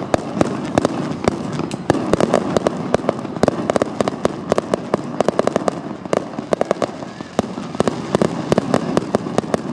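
Fireworks display: a dense, irregular run of sharp cracks and pops, several a second, over a steady background haze.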